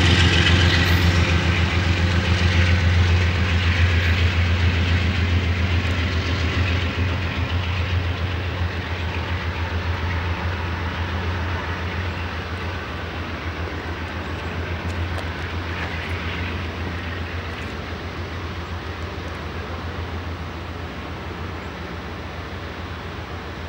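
Diesel locomotive of an Amtrak California passenger train moving away, its low engine drone and the rumble of the wheels on the rails fading steadily.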